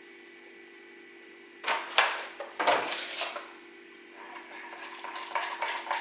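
Kitchen dishes and utensils clattering and clinking, with louder knocks about two and three seconds in and lighter clinks near the end, over a steady low hum.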